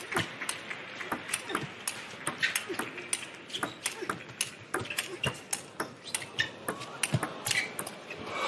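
Table tennis rally: the celluloid ball clicking sharply off the bats and bouncing on the table, a few strikes a second in an irregular back-and-forth rhythm.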